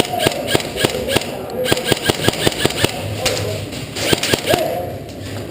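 Airsoft guns firing in rapid strings of shots, several a second, with short pauses between strings. Shouted voices are mixed in.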